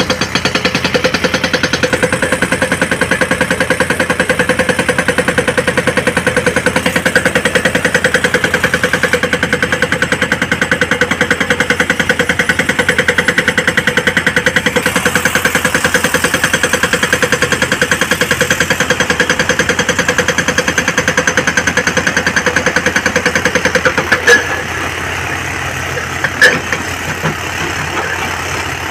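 Heavy diesel engine of a truck or excavator running steadily with a fast even pulse. About 24 seconds in it drops to a lower level, and a few sharp knocks follow near the end.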